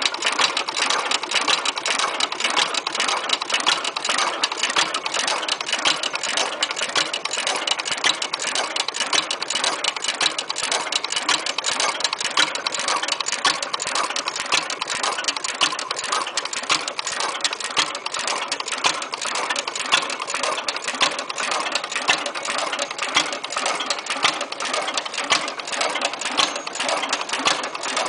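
3 HP Harvard Stickney hit-and-miss engine running, with a fast, steady mechanical clatter throughout.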